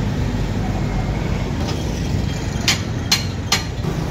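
Steady engine and road traffic noise, with three sharp metallic clinks about 0.4 s apart in the second half, from metal tire tools being handled.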